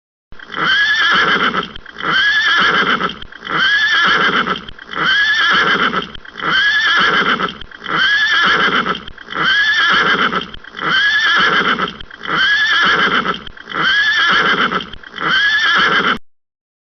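A horse neighing: the same short whinny repeated about eleven times in an even loop, roughly one call every second and a half, then cutting off.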